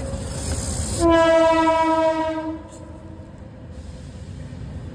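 A loud horn blast: one steady note that starts suddenly about a second in, holds for about a second and a half, then fades away.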